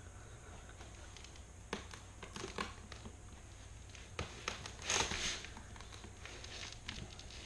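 Kerdi-Line metal drain grate being pushed and shifted in its channel between floor tiles: scattered light clicks and knocks of metal on metal and tile, with a louder brief scrape about five seconds in.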